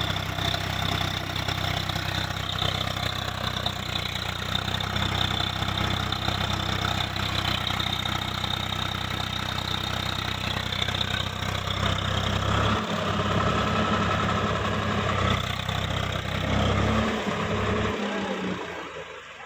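Swaraj 855 FE tractor's three-cylinder diesel engine running steadily at low speed as the tractor crawls through deep mud; the engine sound fades near the end.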